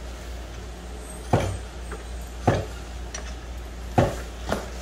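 Hydraulic floor jack being pumped by hand, a sharp clunk with each stroke of the handle: four clunks, the first about a second and a half in, roughly a second apart. The jack is raising the engine by its oil pan on a wood block. A steady low hum runs underneath.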